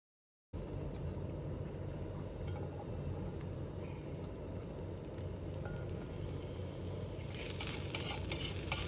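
A steady low rumble, then about seven seconds in, food starts sizzling in a frying pan, with small clicks of stirring.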